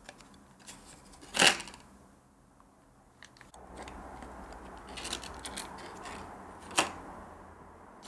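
Hands handling a CPU's clear plastic clamshell and bag: a sharp plastic click about one and a half seconds in and another near the end, with soft rustling and small ticks between.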